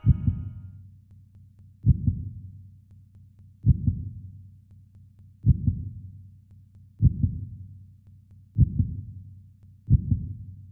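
Heartbeat sound effect: seven low double thumps, lub-dub, each dying away before the next, coming a little quicker toward the end.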